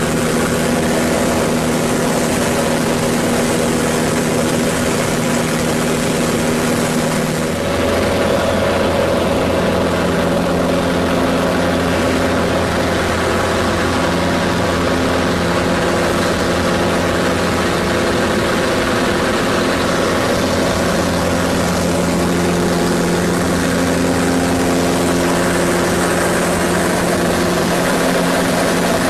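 Pitts Special biplane's piston engine and propeller running steadily, heard from the cockpit with wind rush over it. About seven seconds in, the engine note changes and a deeper tone comes in.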